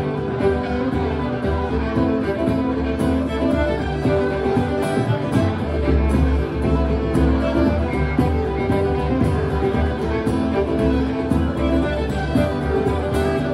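Two fiddles playing a lively Celtic reel over strummed acoustic guitar accompaniment, live.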